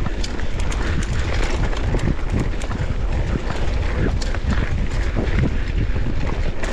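Wind buffeting the microphone of a camera riding along on a moving mountain bike: a steady low rumble, with frequent small clicks and rattles throughout.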